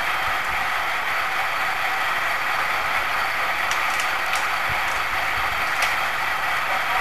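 Steady mechanical drone of an engine running, with a few light clicks about halfway through.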